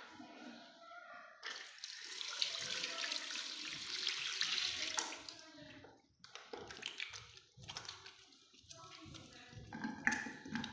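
Tap water running into a sink for handwashing, a steady rush that starts about a second and a half in and stops about five seconds in, followed by quieter splashes and clicks.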